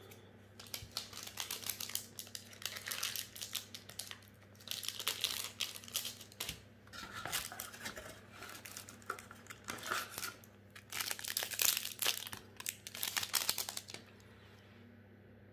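Foil booster pack wrapper being torn open and crinkled in the hands, in several bursts of crackling, stopping about a second before the end.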